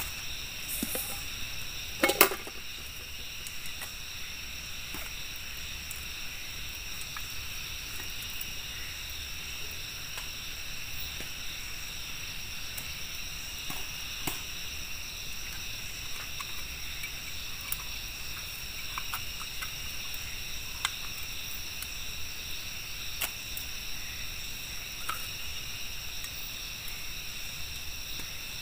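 Insect chorus shrilling steadily at several high pitches, with scattered small clicks and one sharp knock about two seconds in.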